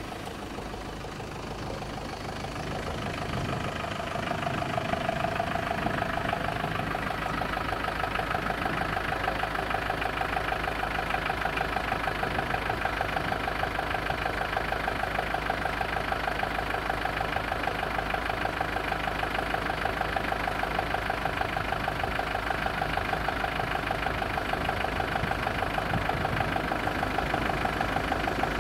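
Level crossing's electronic warning bell ringing, a steady rapid pulsing tone that comes in during the first few seconds and keeps going, signalling an approaching train.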